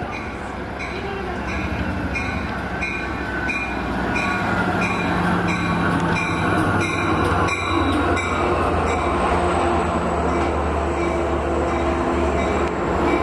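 Long Island Rail Road train approaching, its rumble growing louder, while a bell rings steadily about two to three strikes a second.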